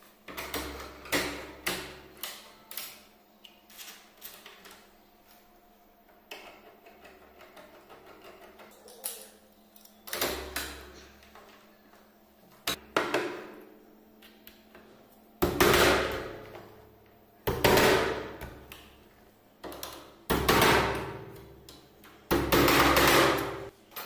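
Metal lever-handle lock hardware clicking and rattling as it is handled and fitted against a wooden door, followed in the second half by four louder knocks, each dying away over about a second.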